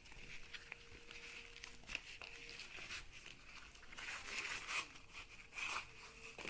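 Faint rustling and crinkling of packaging, with scattered small handling clicks, as a manual blood pressure kit is taken out and handled. The rustling gets busier in the second half.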